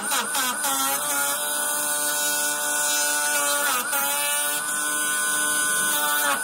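Small electric chopper machine shredding plant stalks: a steady motor whine over a hissing spray of shreds. The pitch sags briefly near the start, about four seconds in and near the end as stalks are pushed in and load the blades.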